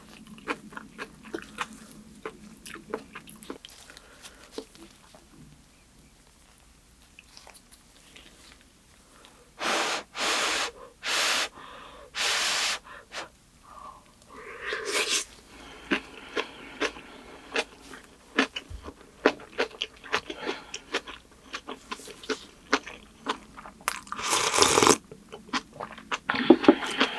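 Close-up chewing and crunching of kimchi and rice: a steady run of small wet clicks, with a few louder, noisy bursts about ten seconds in and again near the end.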